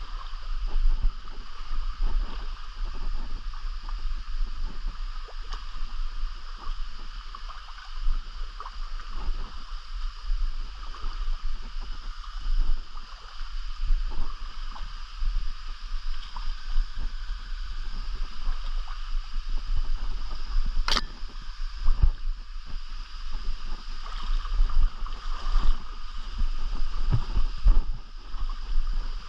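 Steady rushing of a mountain stream, with a low, uneven rumble underneath and a single sharp click about twenty seconds in.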